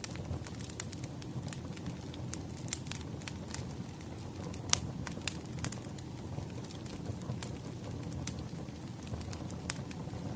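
Wood fire crackling: a steady low rumble of burning logs with irregular sharp pops and snaps, the loudest about five seconds in.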